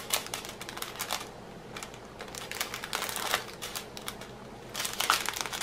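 Small zip-lock plastic bags of square diamond-painting drills being handled: crinkling plastic and the drills clicking and rattling inside in irregular little taps, with a denser flurry of clicks near the end.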